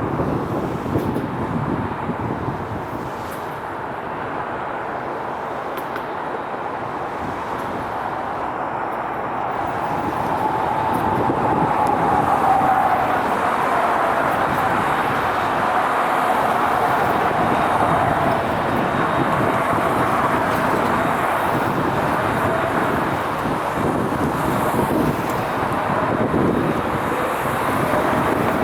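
Jet airliner passing, its engine noise growing louder about a third of the way in, with a whine that slowly falls in pitch as it goes by.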